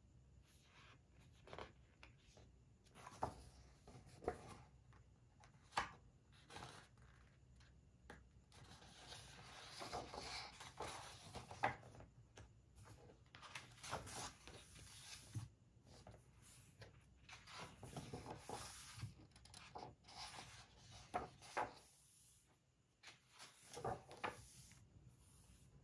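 Faint rustling of paper pages being turned and smoothed flat by hand on a large printed book, with scattered soft taps and rubbing strokes.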